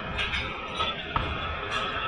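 Workshop background with music playing, and a few short, light clicks of hand tools on metal under the car.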